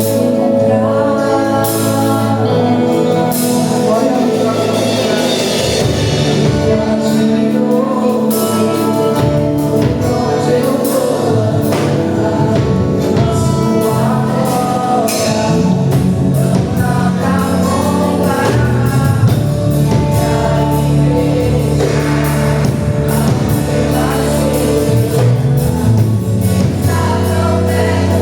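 Gospel worship music: singing over a band with bass and drums, played loud and steady.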